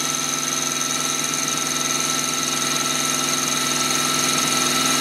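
Central Machinery mini mill's spindle running as its end mill cuts through a scrap of aluminium, the table fed slowly by an Arduino-controlled stepper motor: a steady hum with a high whine.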